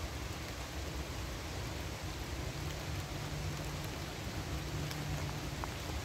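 Steady rain falling on the leaves of a forest, an even hiss with a few faint drop ticks and a low rumble underneath.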